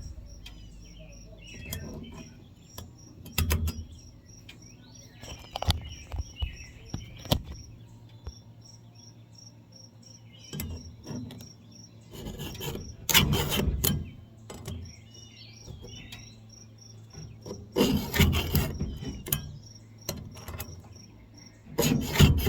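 Crickets chirping steadily, about three chirps a second, under intermittent scraping from a file rasping along the electric chainsaw's chain in short runs of strokes.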